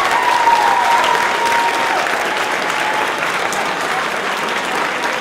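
Audience applauding loudly in a school assembly hall, with a long held high-pitched note from the crowd over it in the first two seconds.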